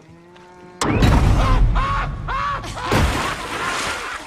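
A sudden loud low thud about a second in, then heavy low rumbling with a string of short, high yells from a frightened man.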